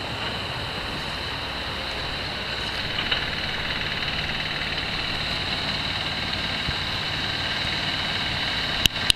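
An engine running steadily under a constant high whine, with a couple of sharp knocks near the end.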